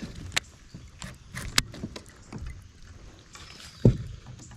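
Handling noises in a fishing kayak: scattered short clicks and taps, with one louder dull thump on the boat about four seconds in.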